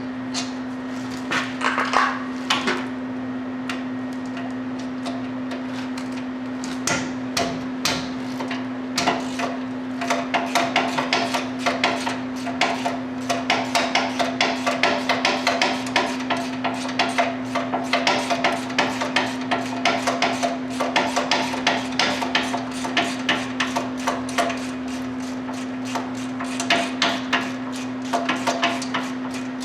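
Hand tools striking and clicking on the hub-assembly bolts as they are worked loose: a few scattered knocks at first, then long runs of sharp metallic taps, several a second, with a short break near the end. A steady low hum sounds underneath.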